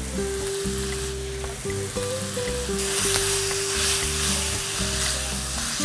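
Chicken and chilli stir-fry sizzling in a hot wok as a wooden spatula stirs it; the sizzle grows louder about three seconds in. Background music with steady held notes plays under it.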